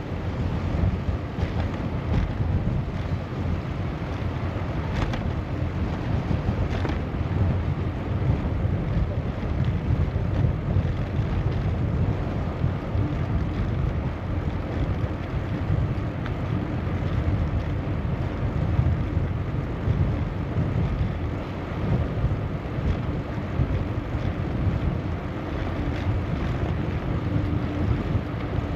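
Steady wind rumble on the microphone of a moving bicycle, a low, even noise with no break.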